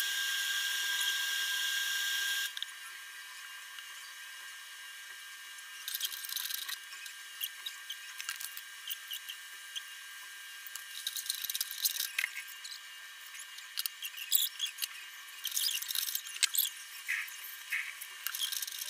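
Kitchen work sounds: metal utensils clinking, knocking and scraping against pots and dishes, in scattered clusters over a faint steady hum. A loud, steady high whine cuts off about two and a half seconds in.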